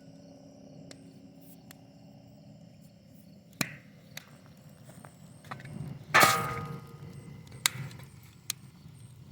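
A few light knocks, then one loud metal clang about six seconds in that rings briefly before dying away.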